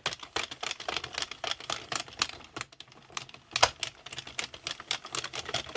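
Hand-cranked plastic circle knitting machine turning, its needles clicking rapidly in a steady clatter, with one louder click about three and a half seconds in.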